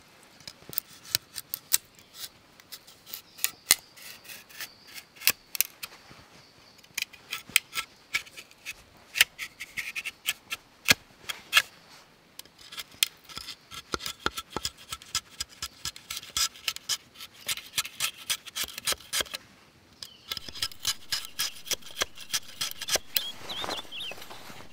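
A hand tool scraping and shaving wood in quick, irregular strokes, with a short pause about twenty seconds in.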